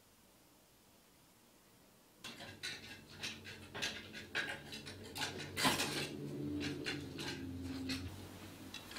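Near silence, then from about two seconds in, irregular clicking, knocking and rustling as clothes hangers are pushed along a wardrobe rail.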